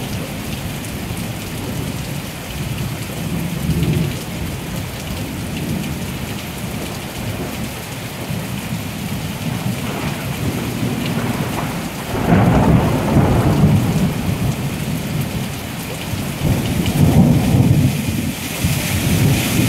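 Rain falling steadily through a thunderstorm, with thunder rumbling low underneath. A louder roll of thunder comes about twelve seconds in, and another near the end.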